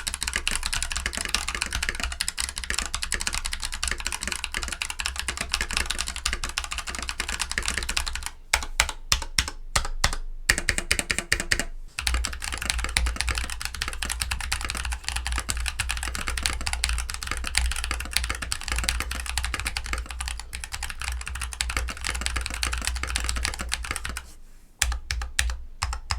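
Typing on an Akko 3087DS v2 Horizon mechanical keyboard: fast, continuous keystrokes with a loud, full-bodied, hammer-like sound. The typing breaks into slower separate key presses about eight seconds in and again near the end.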